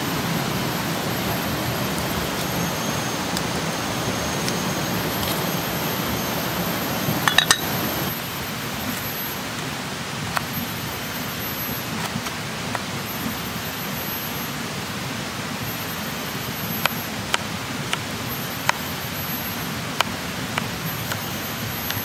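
Steady rushing of a river beside a wood cooking fire, with scattered sharp crackles from the burning wood. A short burst of clicks comes about seven seconds in, after which the rush is a little quieter, and a thin high whine comes and goes.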